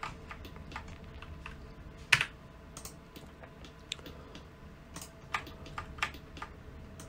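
Computer keyboard keys pressed irregularly, a few sharp clicks with gaps between them, the loudest about two seconds in.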